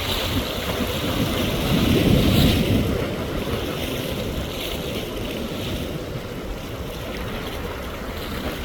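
Large ocean waves surging and breaking over a rock jetty, with wind buffeting the microphone. The surf swells loudest about two seconds in, then settles into a steady wash.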